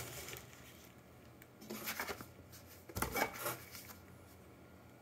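Cardboard and packaging rustling and scraping as the box contents are handled, in two short bursts about two and three seconds in.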